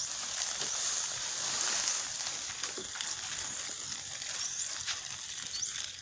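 Woodland evening ambience: a steady hiss with a few short rising chirps, twice close together near the end.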